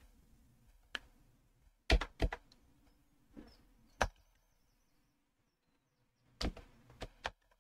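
Keystrokes on a computer keyboard: about eight separate sharp clicks at irregular intervals, some in quick pairs, with short pauses between them.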